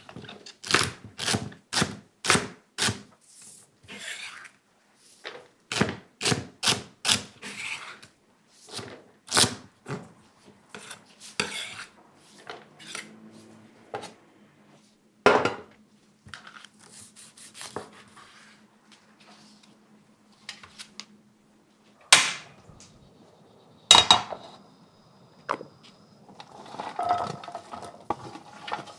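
Kitchen knife chopping celery on a wooden cutting board: quick sharp strokes, about three a second in runs, for the first ten seconds. Then scattered knocks and a few loud clatters of a metal tray, and near the end chopped celery and onion sliding from the metal tray into a frying pan.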